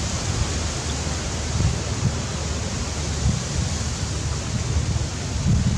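Wind buffeting the microphone: an uneven low rumble that swells and falls, over a steady hiss.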